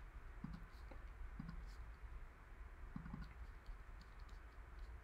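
Faint, scattered clicks of a computer mouse and keyboard as data is entered into a spreadsheet, over a low steady hum.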